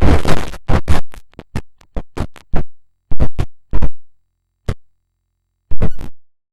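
Heavily processed sound-effect audio chopped into short stuttering bursts of harsh noise, like rapid record scratching. The bursts come thick and fast for about two and a half seconds, then thin out to single hits, stop for about a second, and end with a brief cluster.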